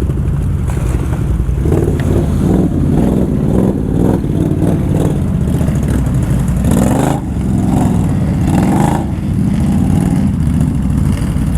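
Can-Am ATV engine running under load, its pitch rising and falling as the throttle opens and eases off, with a brief dip about seven seconds in.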